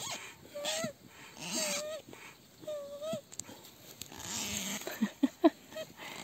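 Foot pump inflating a rubber boat, giving a squeaky, pitched honk with each press, about once a second, then a pause filled with rustling and a few sharp clicks.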